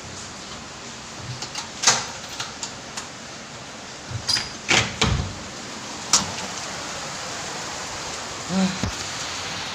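Rain falling steadily with a continuous hiss, interrupted by several sharp knocks or clacks, the loudest about two, five and six seconds in.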